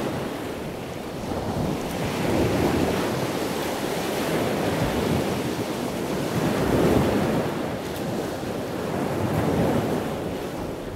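Ocean surf washing onto a beach, the waves swelling and falling back every few seconds, with wind noise on the microphone.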